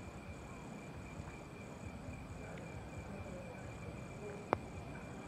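Steady high chirring of night insects, over a low rumbling background noise, with one sharp click about four and a half seconds in.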